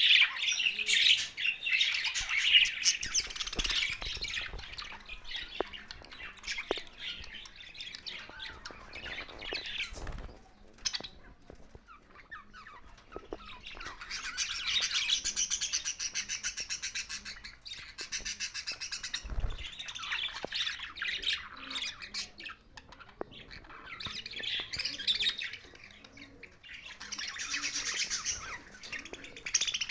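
A flock of budgerigars chattering and squawking: dense, overlapping chirps that swell into busier bursts at the start, around the middle and again near the end, with quieter stretches between.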